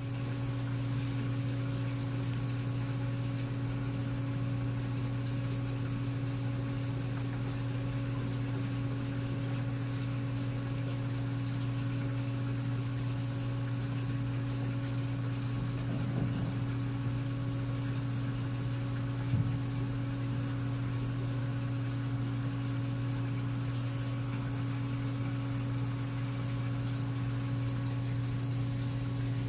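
Steady low hum of reef aquarium pumps running, with a faint hiss of water over it. There is a light knock about 19 seconds in.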